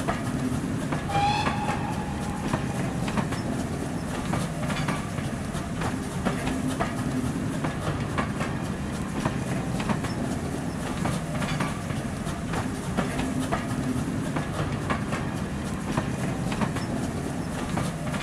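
A train running past: a steady low rumble with the clickety-clack of wheels over rail joints, and a brief high-pitched tone about a second in.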